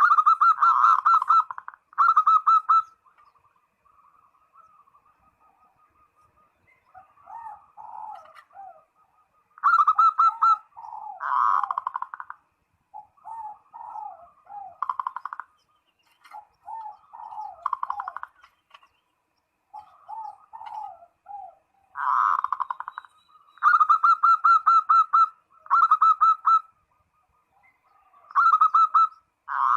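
Zebra dove (perkutut) cooing: loud bouts of quick, evenly repeated rolling notes, each bout lasting a second or two, with softer, lower falling coos in between. It is the dove's call to a rival, which keepers use as a lure.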